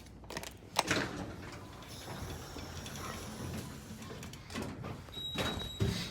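Schindler elevator's sliding doors running, opening with a sharp click about a second in and then a steady mechanical rumble. A thin high steady tone sounds briefly near the end.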